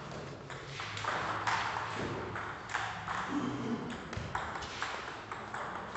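Table tennis ball in a serve and rally: a quick, irregular series of sharp clicks as the celluloid ball strikes the paddles and the table.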